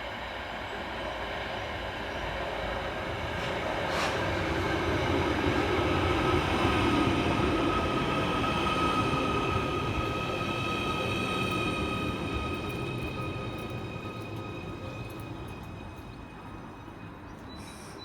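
Merseyrail Class 777 electric multiple unit arriving and slowing into the platform. Its rolling noise swells and then fades, with a steady high whine over it and a single click about four seconds in.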